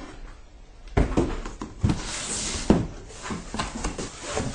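Cardboard shipping box being opened by hand: its flaps are pulled back and folded open, with a few sharp knocks and a rustling scrape of cardboard.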